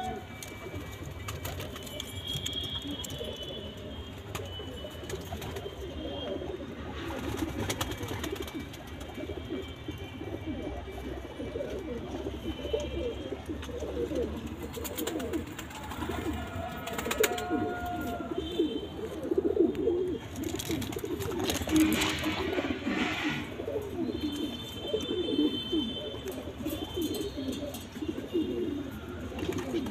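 Domestic pigeons cooing continually, several low, warbling coos overlapping.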